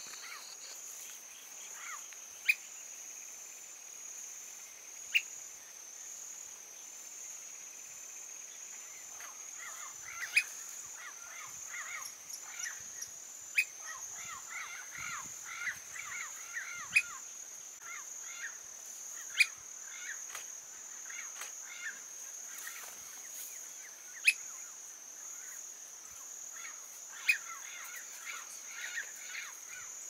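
Outdoor natural soundscape: a steady high insect drone, with birds chirping over it and a sharp short note every few seconds.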